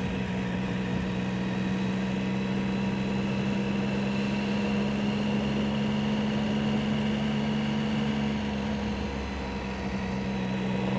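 2008 Triumph Speed Triple's 1050 cc inline-three engine running at a steady pace in traffic, heard from the rider's seat over road and wind noise. It eases slightly about nine seconds in.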